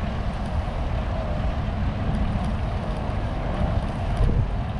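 Strong wind buffeting an action camera's microphone on a moving bicycle, a steady low rumble.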